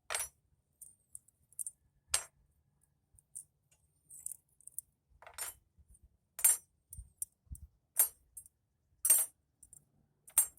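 Motorcycle wheel spokes clinking against each other and the hub as they are pulled out and laid down, a series of separate sharp metallic clinks about one a second.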